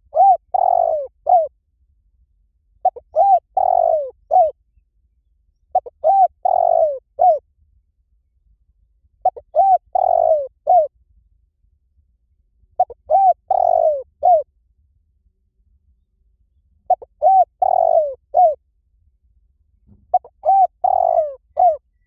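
Spotted dove cooing: seven phrases about three seconds apart, each a run of four or five falling coos with one longer, louder note near the end of the phrase.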